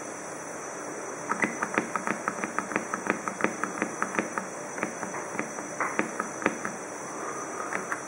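Rapid run of sharp clicks, about four or five a second, from a push button on an espresso machine's stainless front panel being pressed over and over to step the controller's clock minutes forward. The clicks start about a second in, thin out after about six and a half seconds, and a few more come near the end.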